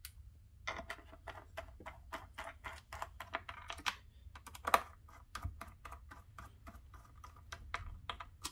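Small precision screwdriver driving screws into a power supply's case as it is reassembled: a run of light, irregular clicks and ticks, a few a second, with one sharper tick just under five seconds in.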